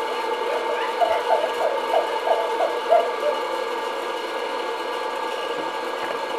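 Hot air popcorn popper running: its fan motor blowing with a steady, noisy drone. A quick series of short, higher sounds rides over it between about one and three seconds in.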